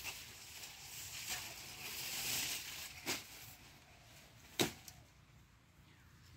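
Sugarcane leaves and stalks rustling as canes are pulled down and handled by hand, with two sharp cracks, about three and four and a half seconds in, the second the loudest.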